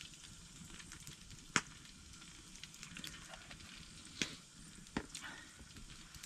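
Campfire crackling with a faint steady sizzle from the cooking grill. A few sharp pops stand out, the loudest about one and a half seconds in.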